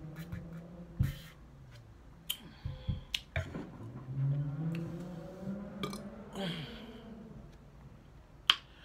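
A woman's low humming, held through the first second and again for a few seconds midway, with scattered sharp clicks and smacks in between.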